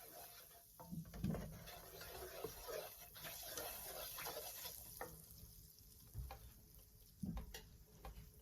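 Flour being stirred into hot fat in a pan to make a roux: faint scraping of the utensil and light sizzling, with a soft bump about a second in and another near the end.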